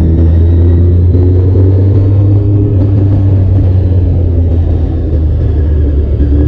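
Honda sport motorcycle riding along at a steady pace: the engine runs with a deep, steady rumble, mixed with wind noise on the bike's microphone.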